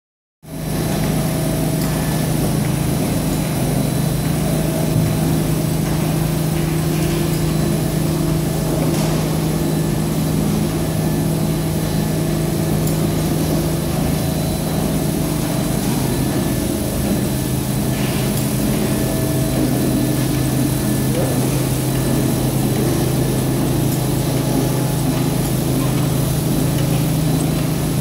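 Maxis automatic carpet washing machine running: a steady mechanical hum with a constant low tone.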